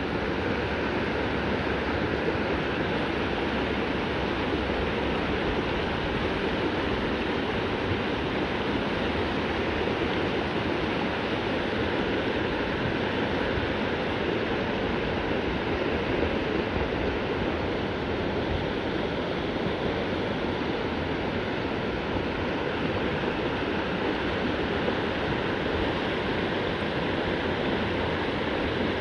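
Shallow rocky river flowing in small rapids over and around boulders: a steady rush and babble of water.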